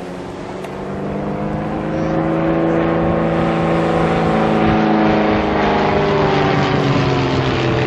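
Extra 300L aerobatic plane's six-cylinder Lycoming piston engine and three-blade propeller droning under power as it pulls out of a dive and flies past. It grows louder over the first two seconds, then holds steady, and its pitch eases slightly downward near the end.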